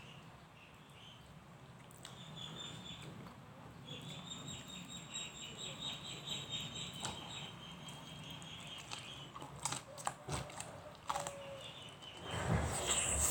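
Birds and chickens in the background: a high chirping trill runs through the middle, with a few sharp clicks, and a louder burst near the end.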